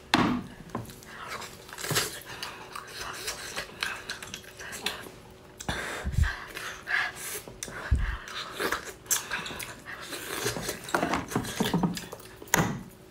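Close-miked eating sounds from a whole cooked octopus: wet mouth noises, sucking and chewing with breaths through the nose, and clicks and taps from handling it and the cutlery. Two dull thumps come about six and eight seconds in.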